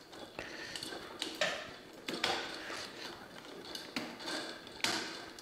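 Cable snake being pulled open and cables pressed into its chambers: irregular clicks and rustling, with a few sharper clicks.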